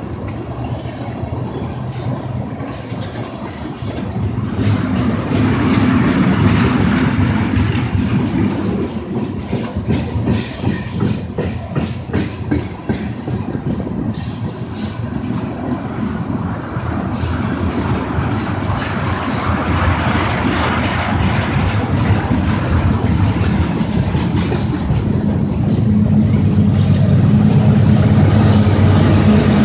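Freight train tank cars rolling past close by, steel wheels clicking over rail joints with a thin high-pitched flange squeal. Near the end a low engine rumble swells as the trailing GE AC44CW diesel-electric distributed-power locomotive approaches.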